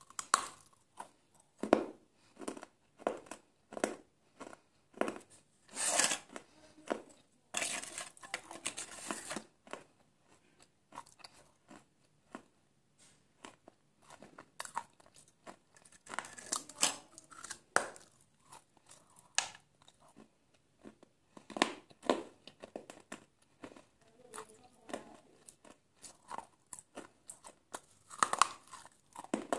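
Close-miked biting and chewing of crunchy fried food: sharp crunches at irregular intervals, with one denser, continuous crackle lasting about two seconds around eight seconds in.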